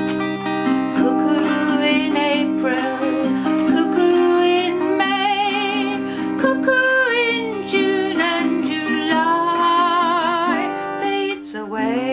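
A woman singing a traditional folk song with a wavering vibrato, accompanying herself on an acoustic guitar.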